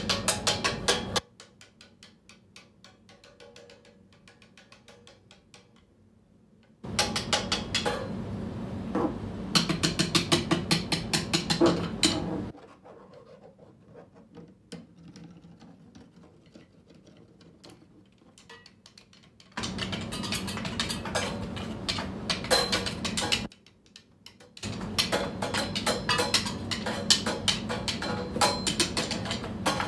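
A cymbal played with drumsticks: passages of dense, fast strokes lasting a few seconds each, broken by quiet stretches of sparse light taps.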